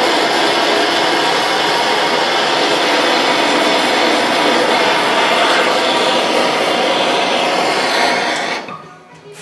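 MAP-gas hand blowtorch burning with a loud, steady hiss as its flame chars the wood surface. The hiss cuts off suddenly near the end.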